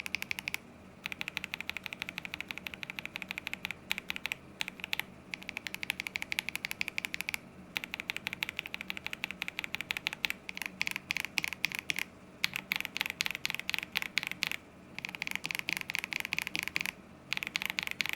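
Fast typing on mechanical keyboards with linear switches, stock Akko Radiant Reds against Dogikon linears: dense runs of keystrokes broken by several short pauses.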